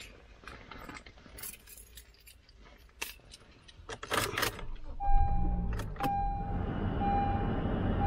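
Car keys jangling and clicking, then about five seconds in a car engine starts and keeps running while a warning chime dings about once a second.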